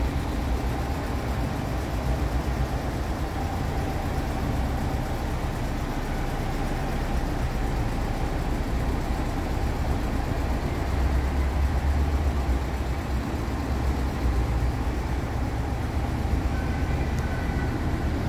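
Volkswagen Bus engine idling steadily, a continuous low rumble that swells slightly about eleven seconds in.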